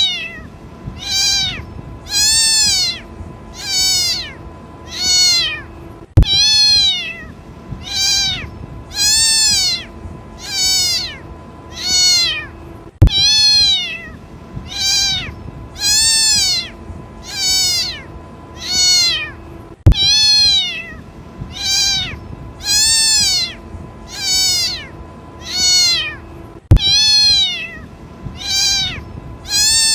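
Kitten crying for its mother: high meows, each rising then falling in pitch, repeated steadily about once every second or so. A sharp click cuts in about every seven seconds.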